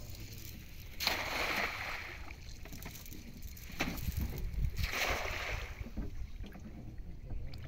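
Cast net thrown from a wooden boat, landing on the river with a hissing spatter of splashes from its weighted rim, near five seconds in; an earlier, similar burst of water noise comes about a second in. Wind rumbles on the microphone throughout.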